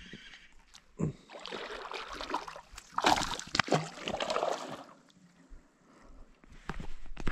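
A hooked bass splashing and thrashing at the water's surface beside a kayak as it is reeled in. The splashing is loudest in the middle, then dies away, and there is a sharp knock near the end.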